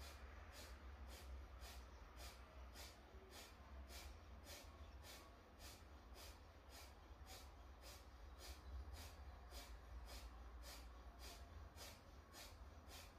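Quick forced exhalations through the nose, a kundalini yoga breathing exercise, each a short faint puff of breath driven by a small pulse of the abdomen, about two to three a second in an even rhythm. A steady low hum lies underneath.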